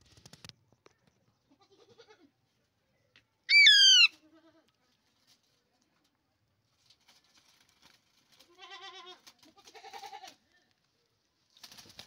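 Alexandrine parakeet giving one loud, short, wavering screech about three and a half seconds in, followed later by two softer quavering calls.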